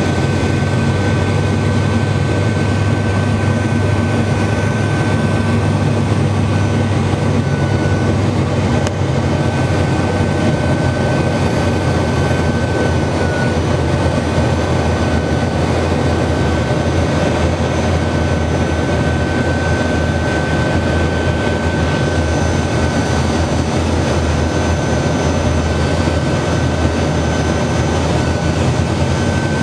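Cabin noise of an Antonov An-38 in the passenger cabin: the twin turboprop engines and propellers keep up a loud, even drone, with a steady high whine riding over it.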